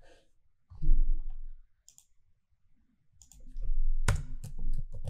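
Scattered clicks and taps of a computer keyboard and mouse, the loudest about four seconds in.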